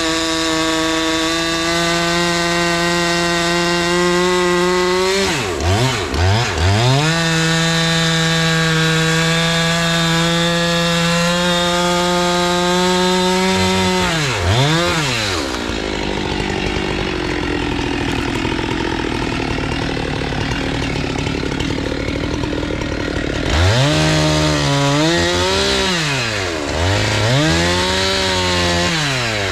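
Husqvarna 390XP two-stroke chainsaw with a 3-foot bar running at high revs while cutting through a large willow trunk. Its pitch drops and climbs back several times as the throttle is eased and reopened, and for a stretch in the middle the tone turns rough as the chain works deep in the cut.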